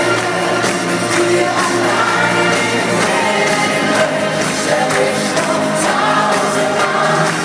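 Live Schlager-pop concert music with a singer's voice over the full band, heard from high in the audience of a large arena hall.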